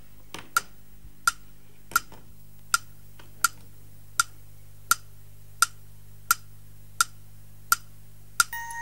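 Clock ticking steadily, about three ticks every two seconds. Near the end, bell-like notes of a tune begin.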